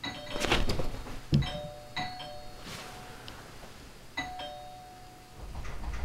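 House doorbell chime ringing a two-tone ding-dong, struck again about every two seconds, three rings in all. Rustling and a thump come near the start of the first ring.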